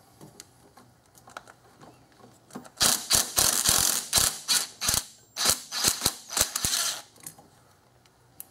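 Ridgid cordless driver spinning a socket on an extension to run out a bracket bolt: two spells of loud, rapid rattling clicks, each about two seconds, with a brief stop between them.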